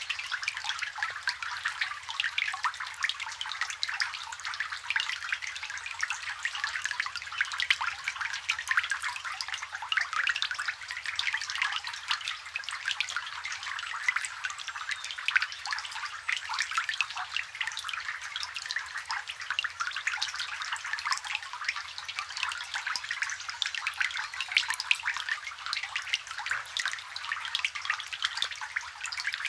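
Rain falling on a water surface, heard close up: a dense, steady patter of small drops plinking and splashing.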